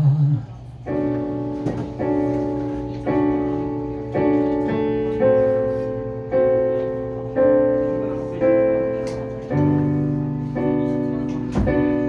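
Yamaha CP stage piano playing repeated chords, one struck about every second and left to fade before the next, in an instrumental passage of a live ballad. About three-quarters of the way through, a held low note comes in under the chords.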